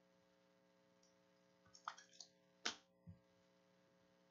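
Trading cards handled by hand as the next card is flicked to the front of the stack: a few soft clicks about two seconds in, then one sharper card snap and a soft knock, over a faint steady hum.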